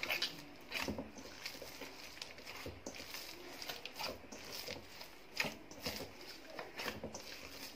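Whole-wheat pizza dough being kneaded by hand in a stainless steel bowl: soft, irregular squishes and slaps of the wet dough, about one every second.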